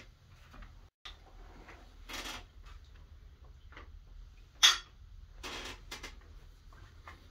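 Scattered short knocks and handling noises in a small room over a low hum, with one sharp, loud knock or clink about four and a half seconds in.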